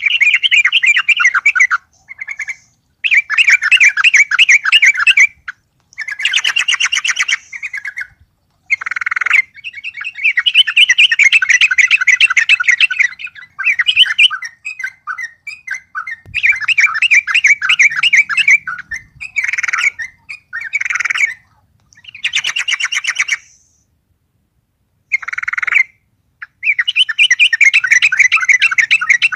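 Yellow-vented bulbul (trucuk) singing loudly in repeated phrases of rapid chattering notes, each one to three seconds long with short pauses between. It is calling hard because a rival bird is present.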